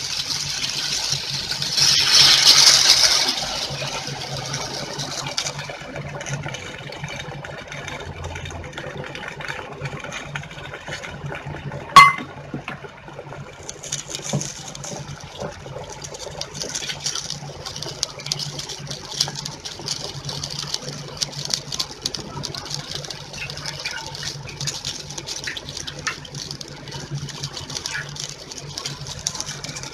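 Tamarind water poured into a hot stainless steel pot of sautéed vegetables, splashing loudest about two seconds in, then the liquid heating on a high flame with a crackling sizzle and small pops. One sharp metal clink of the steel ladle against the pot near the middle.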